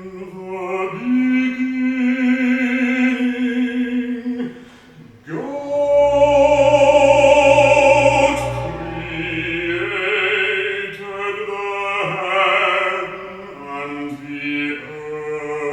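Sonos Era 300 speaker playing operatic-style singing, with long held notes and vibrato. The loudest held note comes about six seconds in.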